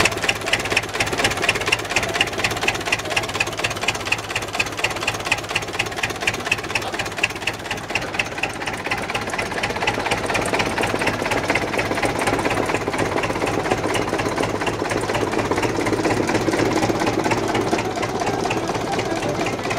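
UTB 650 M tractor's four-cylinder diesel engine idling with a fast, even knocking clatter. The knock is sharpest in roughly the first half, then evens into a steadier running sound.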